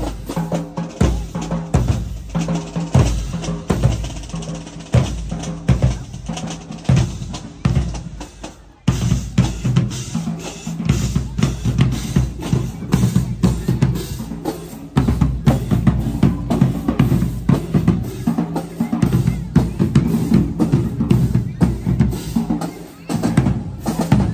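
Marching drumline playing a street cadence: deep bass drum hits under fast snare rolls and rimshots. The playing breaks off and resumes suddenly about nine seconds in.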